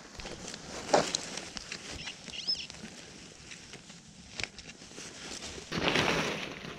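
Dry leaf litter rustling and crackling as it is worked by hand close to the microphone. There is a sharp knock about a second in and a louder stretch of rustling and scraping near the end. A single short high chirp comes about two and a half seconds in.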